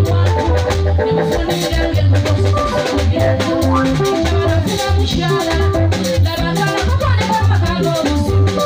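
Band music through a PA: a pulsing bass line and drums under a woman singing, with an electric guitar in the band.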